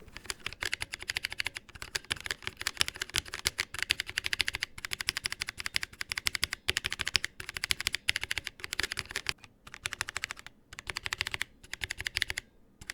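Unlubed 'New Giant Red' linear mechanical keyboard switches, capped with thick PBT keycaps in a 3D-printed switch tester, being pressed rapidly: a dense, fast clatter of keystrokes with a few short pauses. Unlubed, these switches are scratchy and pingy.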